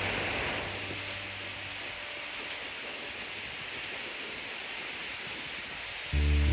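A steady rushing noise with no clear pitch. Background music fades out about two seconds in, and louder music starts near the end.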